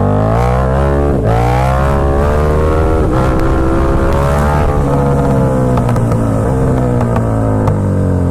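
KTM 1290 Super Duke R V-twin engine accelerating hard: revs climb, drop sharply at an upshift about a second in, climb again and drop at a second upshift around three seconds in. The throttle then eases off and the revs fall slowly toward the end, with wind rushing over the microphone.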